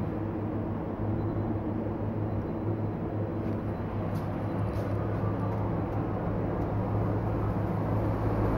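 A steady low machine hum, unchanging throughout.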